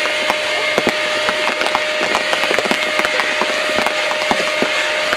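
Heavy rain in strong hurricane wind, with a steady rushing hiss and many sharp irregular ticks of drops striking close to the microphone.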